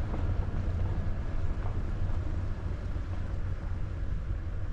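A vehicle driving along a campground road: a steady low rumble of engine and tyres.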